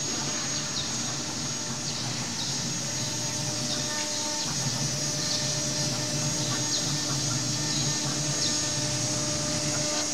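Stone CNC router's spindle running with a steady high whine while its bit engraves a stone slab; the lower cutting and drive noise dips briefly about four seconds in, then picks up again as the tool moves on.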